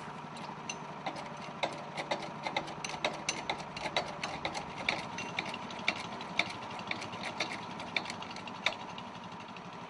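A machine running steadily with a low hum, with many irregular ticks and clicks over it.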